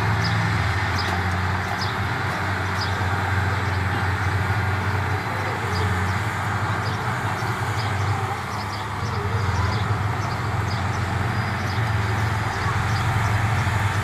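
Bulldozer's diesel engine running steadily as a low drone, with light clinks scattered throughout.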